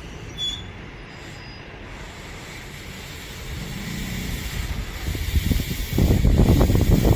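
A Sanyo Electric Railway train approaching through the station, growing louder from about halfway in and becoming a loud low rumble of wheels on rails in the last second or so.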